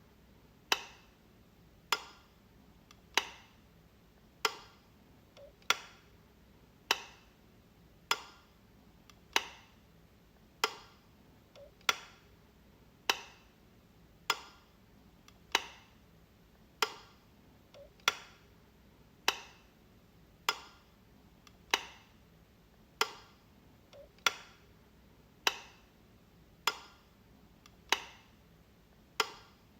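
Wall light switch clicking, flipped over and over at an even pace of about one sharp click every 1.2 seconds, some with a faint small click just before.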